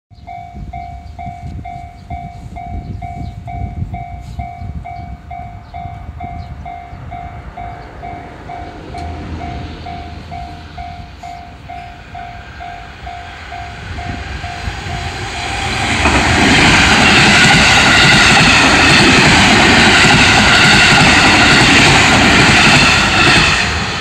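Japanese level-crossing warning bell ringing in an even kan-kan, about two strikes a second. About sixteen seconds in, a JR West 223 series electric train passes, its loud rush of wheels and motors drowning the bell until it fades near the end.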